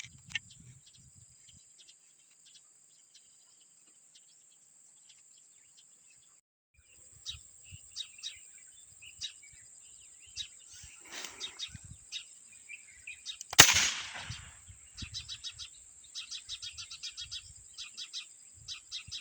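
Birds chirping over a steady high-pitched whine, with one sharp snap about two-thirds of the way in that is much louder than anything else.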